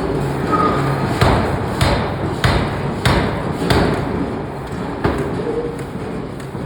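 Hammer blows on hot steel being forged: five strikes in an even rhythm, a little under two a second, then a sixth after a short pause, over a steady workshop noise.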